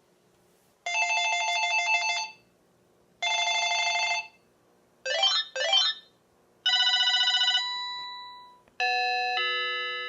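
Panasonic KX-TGA101CS cordless phone handset playing its built-in ringtones one after another, each cut short before the next: two bursts of a fast electronic trilling ring, then two quick electronic chirps, then melodic ringtones of held notes that die away.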